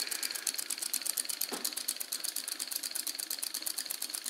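Homemade two-cylinder solenoid engine running, its two 12-volt long-stroke solenoids firing opposite each other through copper rocker tabs with a rapid, even clicking.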